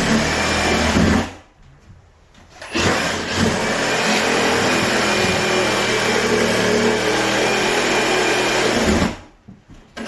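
Power saw cutting through the floor decking along the wall. It runs steadily, stops briefly about a second in, starts again, and stops once more near the end.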